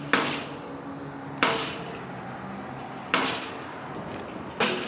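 Four short metallic clanks about a second and a half apart: a wire shopping cart being jolted and rattled.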